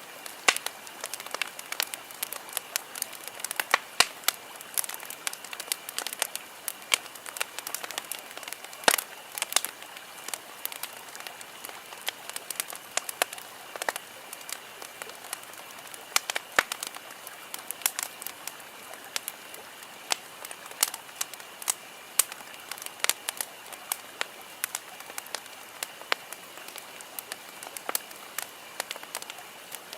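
Campfire burning, wood crackling and popping irregularly over a steady hiss, with a few louder pops.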